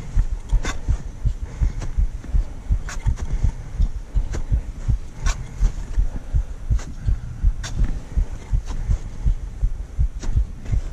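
Steady low thudding and rumble close on the microphone, with sharp clicks about once a second: a climber's footsteps on snow and ice.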